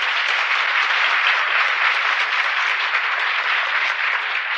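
Audience applauding steadily, a dense even clapping from a large crowd on an old speech recording.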